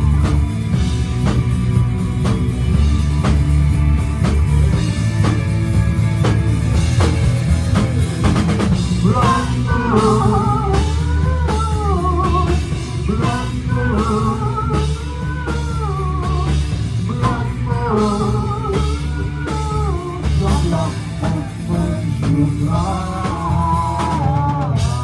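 Live gothic rock band playing an instrumental stretch of a song, with steady drum-kit beats over bass and guitars. About ten seconds in, a wavering, bending lead melody comes in over the band.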